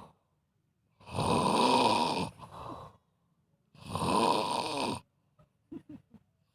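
A person snoring in sleep: two long snores, each over a second, about two and a half seconds apart, then a few faint short sounds near the end.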